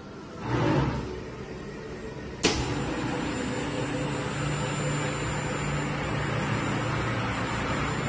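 Winman WM-508 formed-in-place foam gasket dispensing machine running. A brief rushing swell comes about half a second in, a sharp click at about two and a half seconds, then a steady machine hum with a thin high tone.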